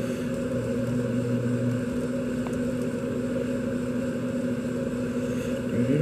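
A steady low hum throughout, with a deeper tone under it for about the first two seconds.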